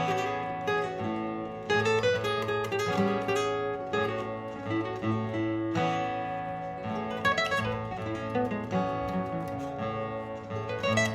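Martin GPCPA4 acoustic guitar played through a looper pedal, with a repeating looped part of held low notes under picked and strummed notes that change every fraction of a second.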